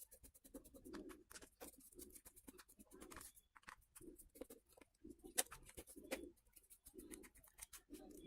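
Faint ticks and scrapes of a small screwdriver taking the screws out of a Samsung keypad phone's casing, with soft low knocks of handling in between.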